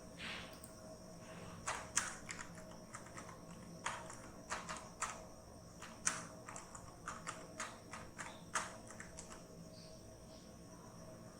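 Typing on a keyboard: quick, uneven keystroke clicks in short clusters that stop a couple of seconds before the end, with a faint steady high-pitched whine behind them.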